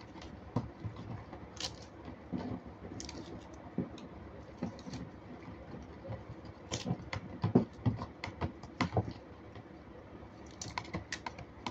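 Metal spoon clicking and scraping against a clear plastic tub as a child stirs liquid jelly mix, in irregular taps that come thickest a little past the middle.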